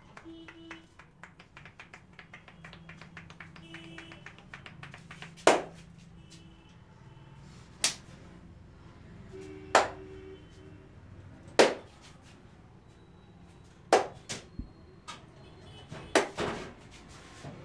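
Head massage percussion: a quick run of light fingertip tapping on the head, then hand claps struck on the head, sharp and loud, every second or two, with a few in quick succession near the end.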